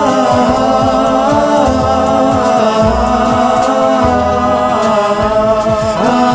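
Song music between sung lines: held melodic tones over a moving bass line.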